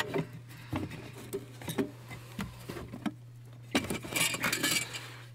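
Light plastic clicks, knocks and rustling as a plastic electrical module and its wiring harnesses are pulled down and handled under a car dashboard, with a longer scraping rustle about four seconds in, over a steady low hum.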